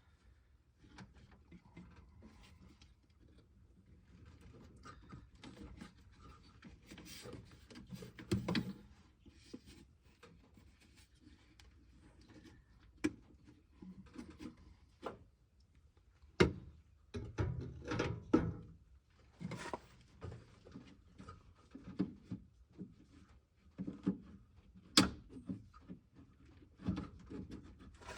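Faint scattered clicks, knocks and rubbing of hands handling parts while swapping the engine computer's plug connector, with a few sharper clicks and a short cluster of knocks about two-thirds of the way through.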